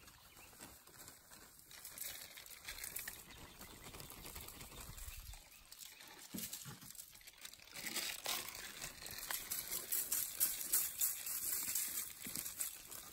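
Aluminium foil and a plastic bag crinkling and rustling as seasoning is shaken from the bag over shrimp in the foil. The rustling grows louder in the second half.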